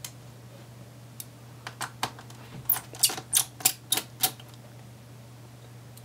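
A quick run of about ten light clicks and taps of small hand tools being handled on a hard desk, spread over about three seconds, over a faint steady low hum.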